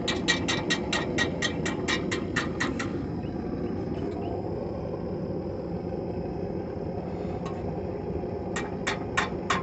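Hand hammer striking hot steel on an anvil in a quick run of blows, about four a second, stopping about three seconds in and starting again near the end. Under it runs a steady roar from the forge.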